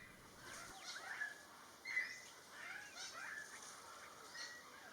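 Small birds chirping: many short high chirps and calls, scattered and overlapping, some sliding in pitch. The sound is fairly faint.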